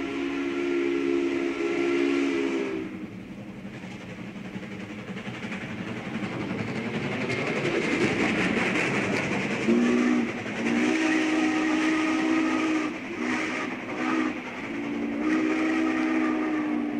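Steam locomotive chime whistle blowing a long chord. Then comes the rushing noise of the train running by. Then several more blasts, short and long, near the end.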